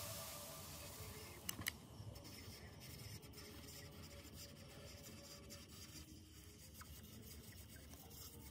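Faint sound of a hot-staple plastic repair tool melting a wire staple into a cracked plastic speaker horn, with a few small clicks, two of them close together about one and a half seconds in.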